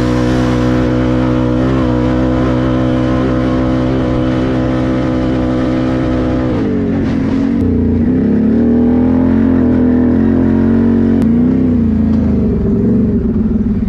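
Can-Am 1000 ATV's V-twin engine pulling at steady revs, then about halfway through the revs drop and rise and fall unevenly.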